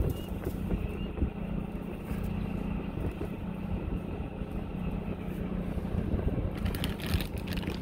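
Steady low hum of a fishing vessel's running machinery, with a burst of rustling noise near the end.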